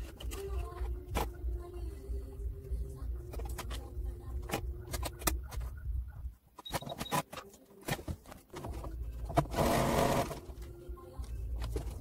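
Electric domestic sewing machine stitching in short runs, sped up fourfold: a pulsing low motor hum with rapid needle clicks. It pauses about six seconds in, then a louder stretch of fast running comes near the end.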